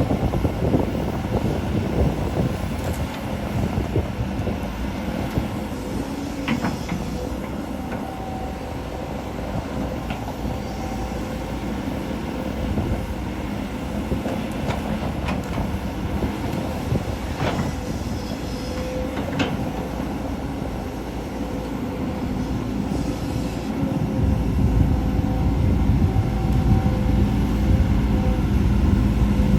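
Volvo EC210D excavator working: the diesel engine and hydraulics run steadily under load, with a faint steady whine and several sharp metal clanks. The engine rumble grows louder near the end.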